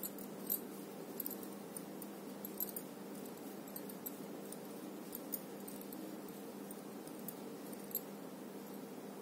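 Faint, scattered light clicks and jingles from metal bangles on the wrists as the hands work a crochet hook through yarn, over a steady low hum.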